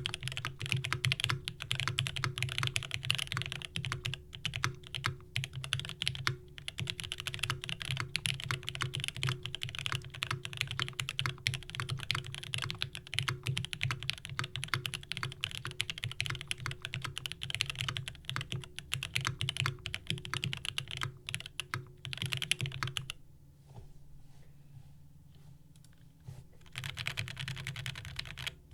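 Steady fast typing on a Kepler FC65 mechanical keyboard with lubed Gateron Black Ink linear switches, an aluminium plate and GMK keycaps. The keystrokes stop for about three seconds near the end, then start again.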